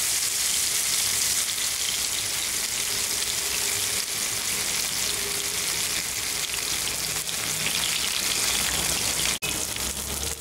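Masala-coated pearl spot fish shallow-frying in hot oil in a pan, a steady dense sizzle as the first side fries. The sound cuts out for an instant near the end.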